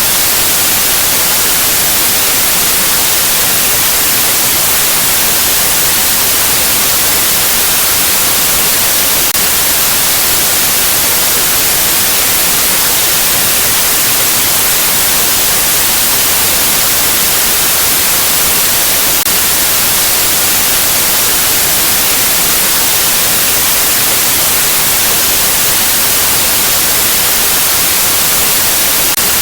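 Steady, loud white-noise static: an even, unbroken hiss, brightest in the high register, with no change throughout.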